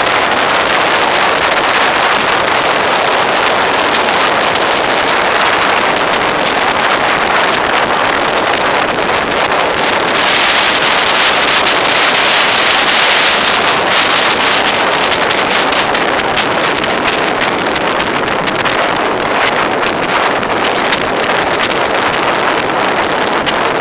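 Steady wind rush and road noise on the camera microphone of a motorcycle riding at road speed, with no clear engine note standing out. It grows louder and brighter for a few seconds in the middle.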